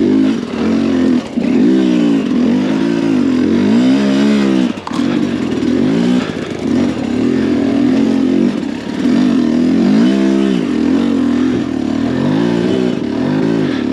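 Sherco 300 SE Factory two-stroke enduro motorcycle engine revving up and falling back over and over in first gear, as the throttle is blipped on and off. There is a sharp knock about five seconds in.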